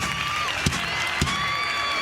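Fireworks display: three sharp bangs of bursting shells over a steady crowd noise with cheering, and high whistling tones.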